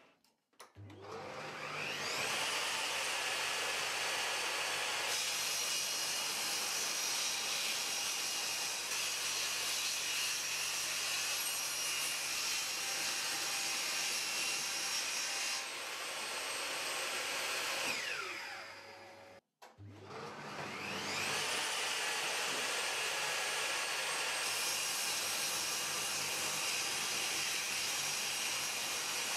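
A workshop electric motor starts with a rising whine and runs steadily. It winds down and stops a little past halfway, then starts up again and runs on.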